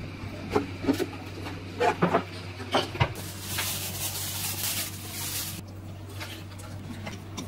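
A few sharp knocks and clatter, then about two seconds of dense rustling as glutinous rice flour is poured from a plastic bag into a glass bowl. A low steady hum runs underneath.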